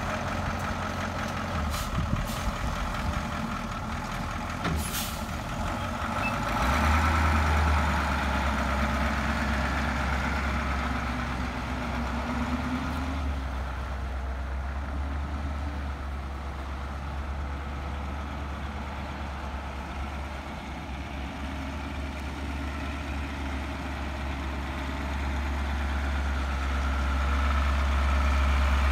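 1984 Ford 8000 tank truck's engine running as the truck pulls away, drives off and comes back, louder again near the end as it approaches. A few short sharp clicks or hisses sound in the first few seconds.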